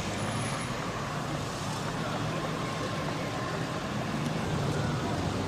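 Formula One car engines at a race circuit, a steady low drone with no car passing close.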